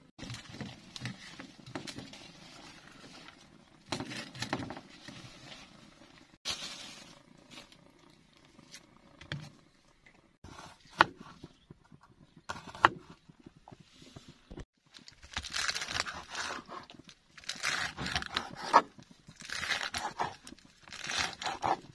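A kitchen knife cutting tempeh and leafy greens on a plastic cutting board: scraping and rustling strokes with a few sharp knocks of the blade on the board. The cuts come in quick runs over the last several seconds.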